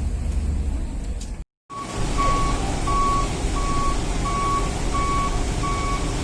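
Vehicle reversing alarm beeping steadily, about one high beep every 0.7 seconds, over a low engine rumble as vehicles are driven off a ferry's car deck. Before the beeping starts, about a second and a half in, there is only a steady low rumble, cut off briefly.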